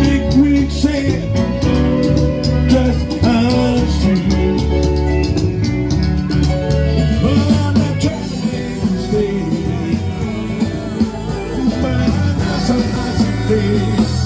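Live band playing: a singer backed by guitars over a steady beat.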